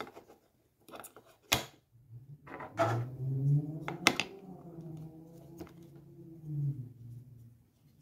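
Skullcandy Sesh earbuds being set into their plastic charging case, with sharp plastic clicks about one and a half seconds in, around four seconds in and near six seconds in. Through the middle of it a man hums one low note for about five seconds.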